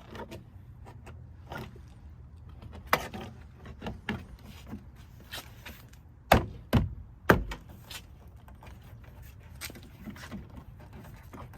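Plastic parts on a car door clicking and knocking as a mirror part with locating tabs is lined up and pressed into place; scattered light clicks, with three loud knocks in quick succession a little past the middle.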